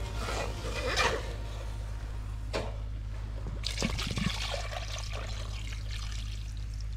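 Coconut water poured from a freshly opened green coconut into an aluminium pot holding octopus, trickling and splashing steadily from about halfway through. There is a brief burst of noise about a second in.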